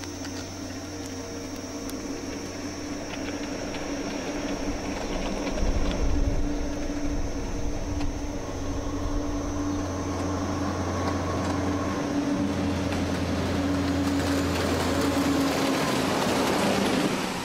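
Heavy semi-truck's engine running as it drives along a dirt road, getting louder as it comes closer, with a rush of tyre and road noise near the end as it passes.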